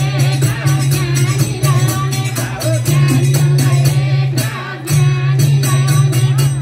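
Nepali chudka bhajan music played loud: a singing voice over a fast, steady beat with jingling percussion and a heavy bass that drops away briefly twice.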